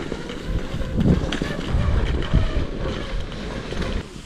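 Wind rumbling on the microphone over the scuffing and crunching of skis and boots in snow.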